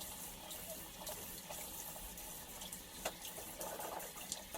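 Sink tap running, with water splashing irregularly as it is scooped up for washing the face.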